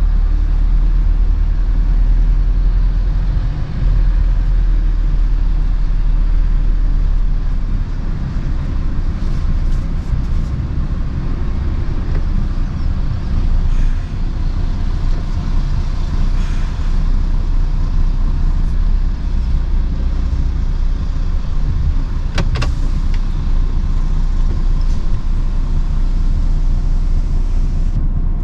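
Heavy lorry's diesel engine running in a steady low rumble, with a couple of sharp clicks about three-quarters of the way through.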